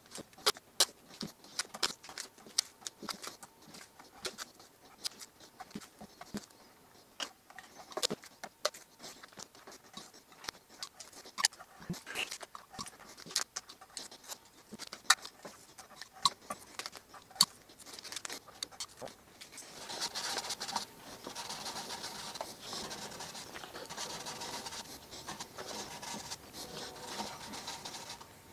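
Blue painter's tape being pulled off the roll, torn and pressed down onto a guitar fretboard between the frets, masking it off for fret polishing: scattered sharp clicks and scratches. From about twenty seconds in a denser, steadier scratchy rubbing takes over.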